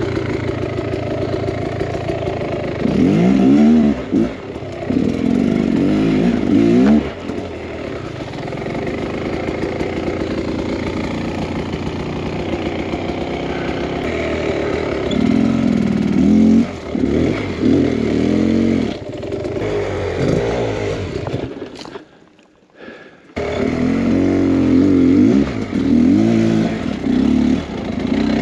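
Two-stroke engine of a 2023 Beta X Trainer 300 dirt bike being ridden on a trail, revving up and down repeatedly as the throttle is worked. The sound cuts out briefly about 22 seconds in.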